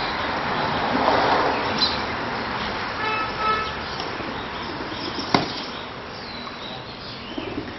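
A flock of pigeons being fed on the ground, with a rush of wing flapping about a second in. A short horn-like toot sounds about three seconds in, and a single sharp click a couple of seconds later.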